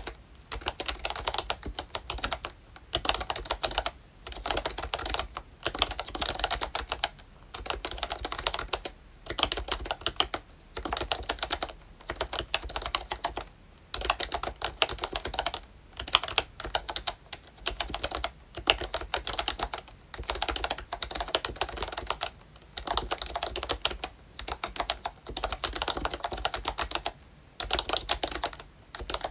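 Typing on a ROYCHE Disney Mickey Mouse retro membrane keyboard with round typewriter-style keycaps. Rapid runs of key strokes are broken by short pauses every second or two.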